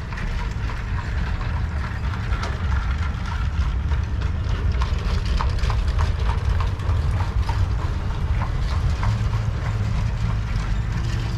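Horse's hooves clip-clopping at an even pace over a steady low rumble, as of a horse-drawn vehicle rolling along a road.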